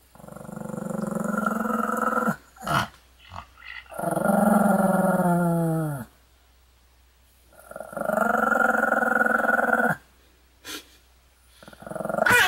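Pomeranian growling in long drawn-out growls: three of about two seconds each with short pauses and a few brief sounds between, and a fourth starting near the end. The second growl drops in pitch as it ends.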